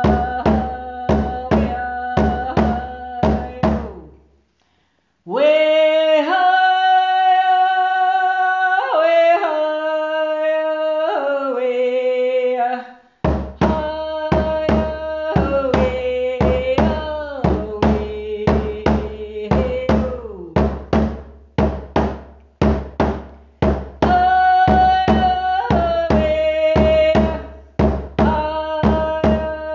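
Anishinaabe song: a voice singing over a steady drum beat. About four seconds in the drum and voice stop briefly, then the voice sings long held notes alone until the drum comes back in around thirteen seconds.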